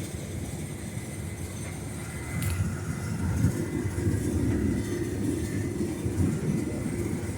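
Case IH 8120 combine running steadily while harvesting corn with a 12-row head: a low rumble as heard from inside the cab. It grows a little louder about two and a half seconds in, with a single short click at that point.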